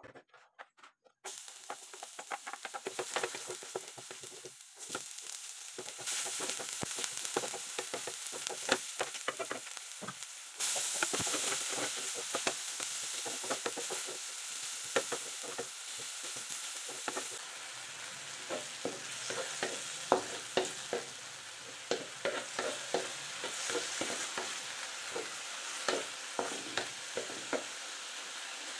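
Sliced onion and tomato sizzling in hot cooking oil, stirred with a wooden spatula that clicks and scrapes against the pan. The sizzle starts about a second in and gets louder in two steps, a few seconds in and again before the middle.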